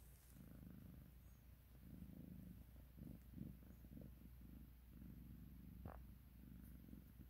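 Long-haired calico cat purring faintly while being stroked, in rhythmic low pulses that swell and pause with its breathing. A brief soft click comes near the end.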